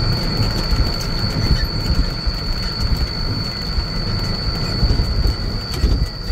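Case 844 XL tractor's diesel engine running under way, a low uneven rumble with a steady high-pitched whine held over it the whole time. The engine is running well.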